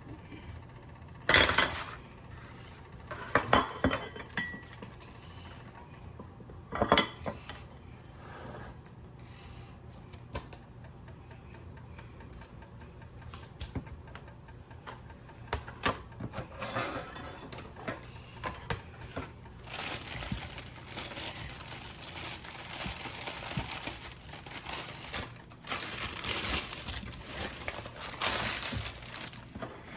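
Pots, pans and metal cooking utensils clattering: a few sharp clanks in the first seven seconds, then a busier, steadier run of kitchen noise with clinks through the second half.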